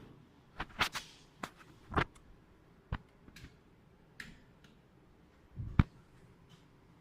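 A string of irregular sharp clicks and knocks, the loudest about six seconds in.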